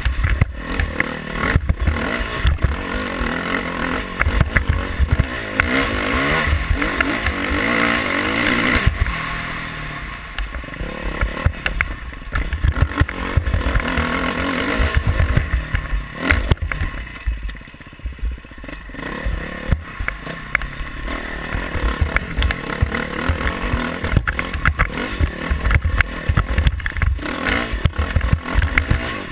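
Dirt bike engine revving up and down while ridden over rough, rocky ground, with knocks and clatter from the bike and wind buffeting the microphone. The engine eases off briefly about two-thirds of the way through, then picks up again.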